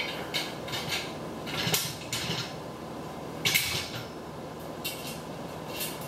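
Short metallic clinks and scrapes of bolts and nuts being fitted by hand into a steel hitch cargo rack, about eight in all, the loudest about three and a half seconds in.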